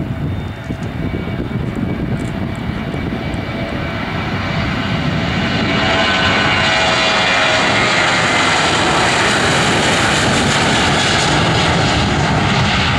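Boeing 737-800's CFM56-7B turbofans at takeoff thrust during the takeoff roll, the roar growing louder as the jet rolls up to and past, then holding loud through rotation. Its whine drops in pitch as it passes, about six seconds in.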